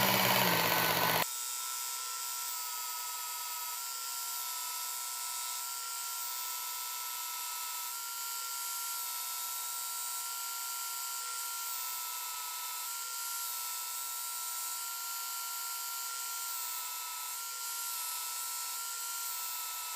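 Work Sharp Ken Onion belt sharpener running with a steady whine while a knife edge is polished on the fine 3000-grit belt. A louder, fuller sound cuts off about a second in.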